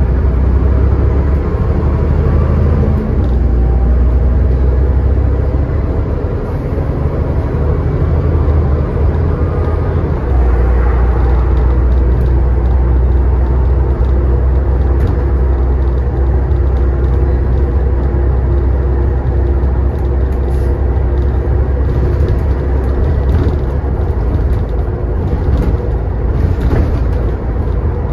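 Scania N94UD double-decker bus's five-cylinder diesel engine and ZF Ecomat automatic gearbox running, heard on board as a steady low drone. The engine note changes about six seconds in and again about ten seconds in.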